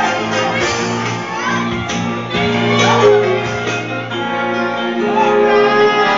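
Loud music with singing playing through the hall, with shouts over it.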